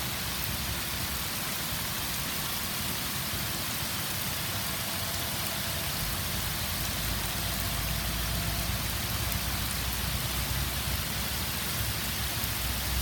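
Heavy rain falling steadily, an even hiss, with a low rumble that grows louder about halfway through.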